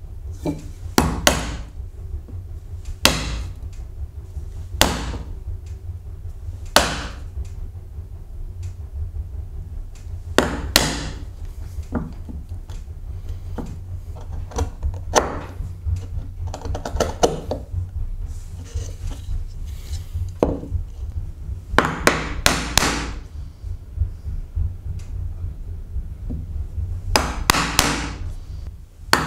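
A wood chisel struck with a small metal-headed hammer, chopping into an oak board: sharp blows at irregular intervals, some single and some in quick runs of two or three, with fainter taps between.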